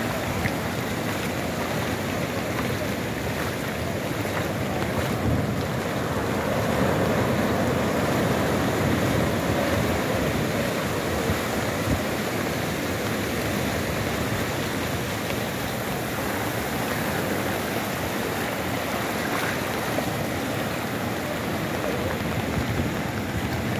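Sea surf breaking and washing up a flat sandy beach: a steady rushing noise that swells a little a few seconds in.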